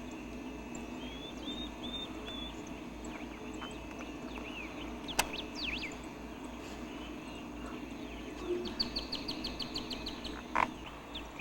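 Small birds chirping and calling in short rising and falling notes, with a rapid trill of repeated notes near the end. There is a single sharp click about five seconds in, over a low steady hum.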